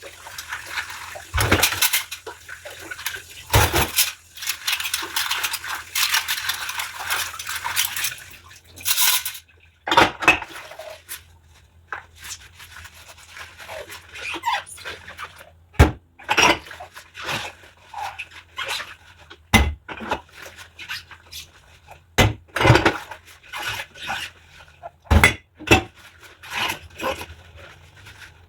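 Dishes being washed by hand: water running and splashing for the first nine seconds or so, then dishes and cutlery clinking and knocking against each other at irregular intervals, with some scrubbing.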